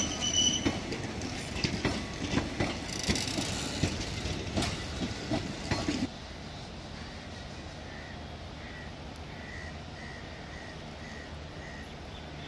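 Train cars rolling past close by, with wheels clattering and knocking over the rail joints and a high wheel squeal in the first second. About six seconds in the train noise cuts off abruptly, leaving a steady, quieter outdoor background with a faint high chirp repeated about twice a second.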